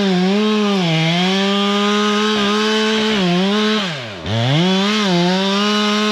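Two-stroke chainsaw running at high revs, its pitch sagging briefly several times. A little past halfway it bogs down hard, almost to a stall, then picks back up to full revs.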